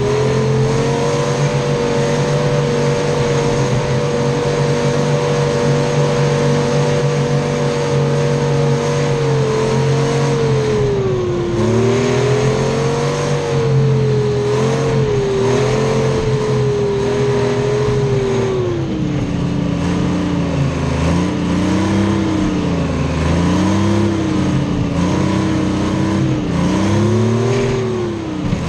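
Detroit Diesel 3-53 three-cylinder two-stroke diesel in a Clark 664B skidder, running hard. Its engine speed is held high for about ten seconds, then dips and climbs again, and in the second half it runs lower with repeated rises and falls as the throttle is worked.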